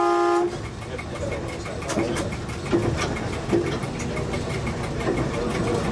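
A short horn blast from a MAN diesel railcar in the first half-second, then the railcar's diesel engine running as it moves along the track, with a few sharp clicks from the wheels.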